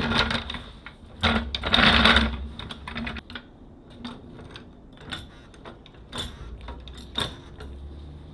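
Clattering and clicking of metal tools and parts being handled: two louder scraping bursts in the first couple of seconds, then scattered light clicks and knocks.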